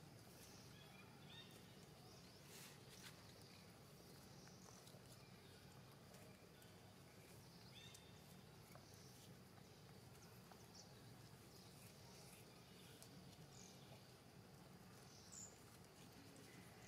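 Near silence: faint outdoor ambience with a few faint, short high chirps and light ticks scattered through it.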